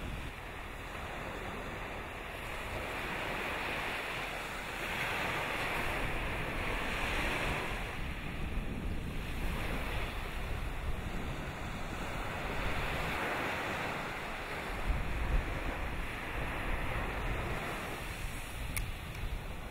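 Rushing wind and surf-like noise that swells and eases every few seconds, with wind buffeting the microphone and one faint click near the end.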